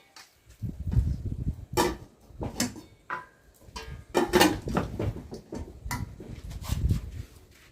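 Footsteps and crunching, rustling handling noise, with wind buffeting the microphone in irregular low rumbles.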